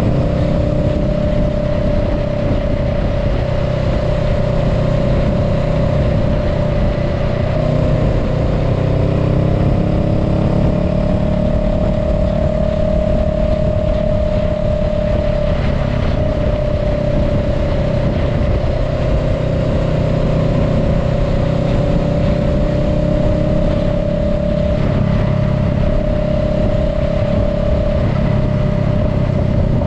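Honda Rebel 500's parallel-twin engine running at a steady cruise, heard from the rider's seat over road and wind noise. Its pitch rises and falls slightly with small throttle changes.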